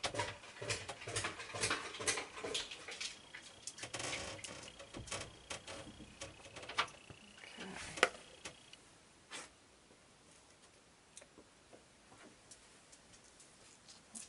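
Soap batter being poured and scraped out of a mixing bowl into glass measuring cups: a busy run of scrapes, taps and clicks, with a sharper knock about eight seconds in, then only a few faint clicks.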